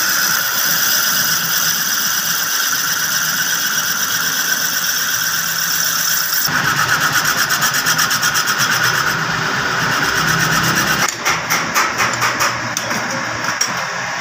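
Metal-working engine lathe running while a tool in the toolpost cuts a spinning wooden blank, a steady scraping hiss of wood being shaved over the machine's hum. About halfway through the cutting pulses rapidly, and around eleven seconds in there is a run of short knocks.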